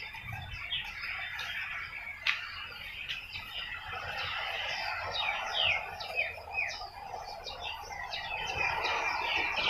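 Garden birds chirping and calling, many short chirps overlapping, with a few quick falling notes in the middle, and one sharp click a couple of seconds in.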